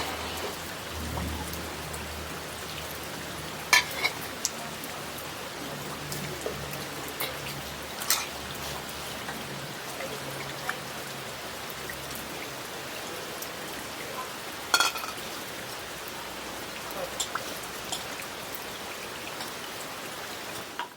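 Steady rain falling, with scattered louder drops striking close by, the loudest about 4, 8 and 15 seconds in.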